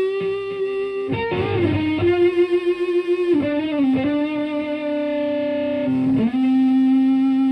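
Stratocaster played through a Rat-style distortion pedal into a Marshall Plexi head and a 4x12 cabinet, with long, sustained single notes and a string bend about a second in. Each held note steps a little lower than the last.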